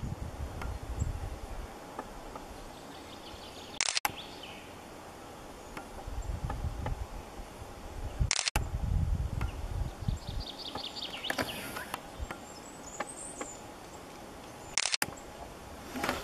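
Woodland ambience with low wind rumble on the microphone and small songbirds singing: a faint run of high notes about three seconds in, and a clearer trill of quick notes falling in pitch about ten seconds in, with a high thin call just after it. The sound drops out for an instant three times.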